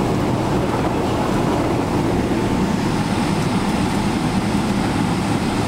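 Steady cabin noise of a Boeing 777-300ER taxiing, its GE90-115B engines running at low taxi thrust under an even rumble from the rolling airframe.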